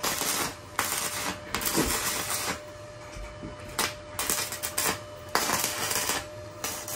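Stick (MMA) welding with a 3.2 mm electrode on a KOBE MIG-272 PRO inverter welder: the arc crackles and sizzles steadily, burning smoothly without breaking off.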